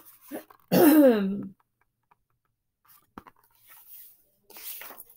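A woman's short voiced sound, falling in pitch, about a second in. Then a single sharp click and a soft paper rustle as a picture book is handled and lowered.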